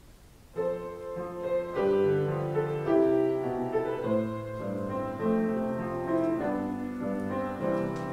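Piano playing a hymn in chords, starting about half a second in.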